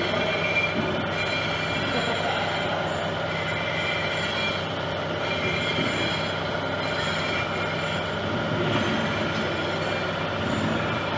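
A machine tool's cutter machining the welded-up boss of a motorcycle wheel hub as part of a weld repair. The metal cutting runs steadily, with a faint high whine that comes and goes.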